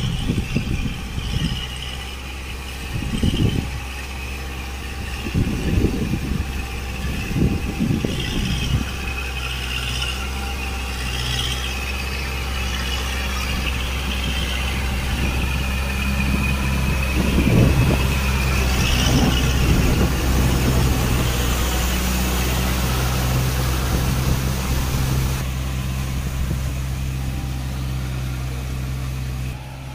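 Kubota MU4501 tractor's four-cylinder diesel engine running steadily under load while it pulls a rotavator through a flooded paddy field. A wavering high whine runs over the engine, and irregular low rumbles come several times in the first nine seconds and again a little past the middle.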